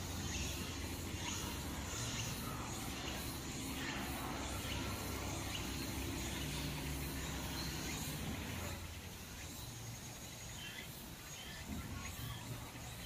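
Outdoor background noise: a steady low hum that drops away about nine seconds in, under faint high chirping.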